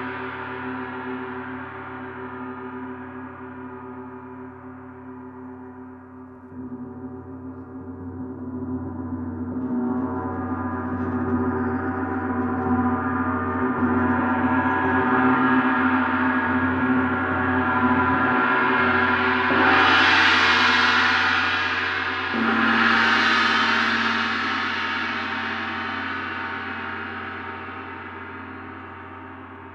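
Large planet-tuned gong ringing with a dense wash of overtones. It fades, then builds back up as it is played again and again, swells with two stronger strokes about two-thirds of the way through, and then dies away in a long ring.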